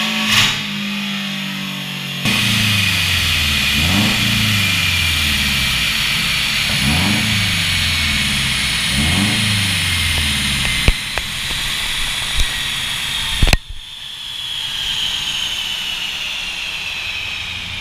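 Turbocharged Scion FR-S flat-four engine running on a chassis dyno, its revs swinging up and down several times under a high whine. Near the end it lets off with three sharp exhaust bangs, the backfires of a tuned turbo car. The engine note then drops away while a high whine slowly falls in pitch as it winds down.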